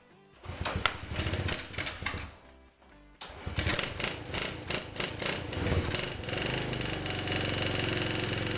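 Coolster 125cc pit bike's single-cylinder engine on a cold start: a short sputtering attempt that dies, then the engine catches about three seconds in and keeps running with a fast, rapid firing rhythm.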